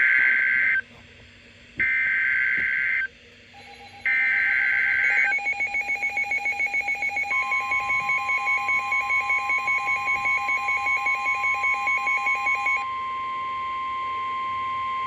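Emergency Alert System SAME header: three harsh two-tone data bursts, each about a second long and a second apart, then a pulsing, warbling attention signal joined by a long steady alert tone that carries on after the pulsing stops near the end. It announces the start of a new severe thunderstorm warning.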